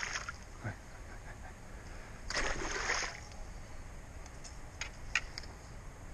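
Water splashing and sloshing at the bank as a pike is held and released by hand in the shallows. There is one louder burst of splashing about two and a half seconds in, then a few light knocks near the end.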